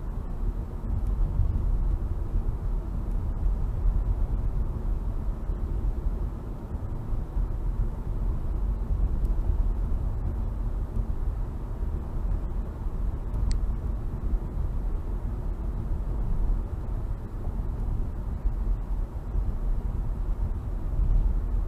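A car's tyre and engine noise heard from inside the cabin while driving at steady road speed: a continuous low rumble.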